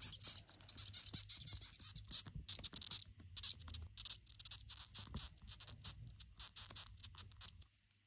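Death's-head hawkmoth squeaking as it is handled: a rapid, irregular run of short, high-pitched squeaks and clicks, stopping shortly before the end.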